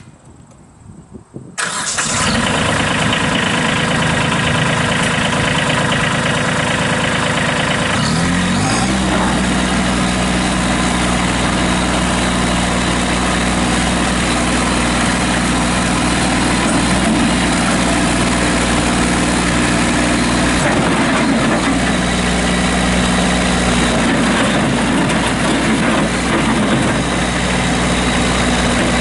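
Kubota B2301 compact tractor's three-cylinder diesel engine starting up abruptly about a second and a half in and running. About eight seconds in its speed rises as the throttle is opened, then it runs steadily at the higher speed.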